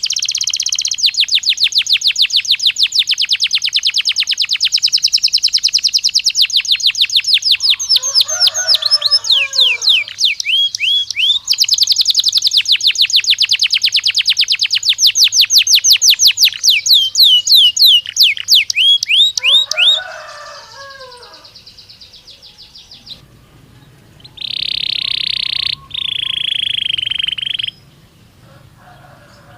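Canary singing: long, fast trilled tours of rapidly repeated high notes, some of them sliding down in pitch. Lower chattering notes cut in twice. After a pause near the end come two long, steady high notes.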